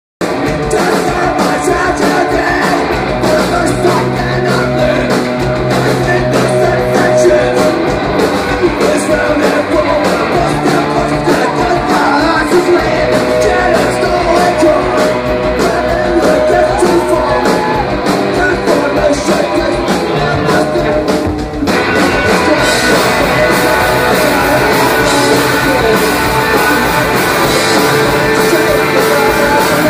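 Live rock band playing loudly, heard from within the crowd: electric guitars, drums and a singer. About two-thirds of the way through, the sound briefly drops and the mix changes.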